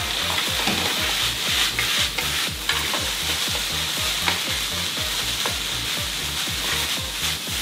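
Rice with shiitake and bamboo shoots sizzling in a frying pan just after a splash of sake, as the alcohol cooks off. A wooden spatula stirs and scrapes it, making frequent short scrapes over the steady hiss.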